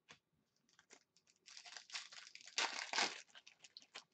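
Foil wrapper of a hockey card pack crinkling as it is torn open. The crinkling is loudest from about one and a half to three seconds in, with scattered small crackles before and after.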